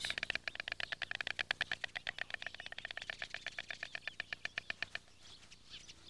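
Stork clattering its bill: a rapid, even rattle of about ten clicks a second that fades out about five seconds in.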